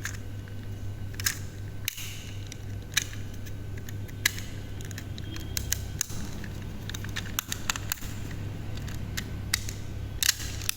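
Scattered sharp plastic clicks and snaps as a computer mouse's shell is fitted and pressed back onto its frame clips, over a steady low hum.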